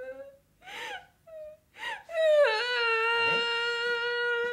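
A person crying out loud: a few short sobbing gasps, then one long, steady wail held for about three seconds.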